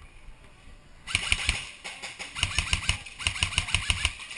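Airsoft gun firing rapid automatic bursts: three runs of sharp shots at roughly ten a second, starting about a second in, with the motor and gearbox whirring under them.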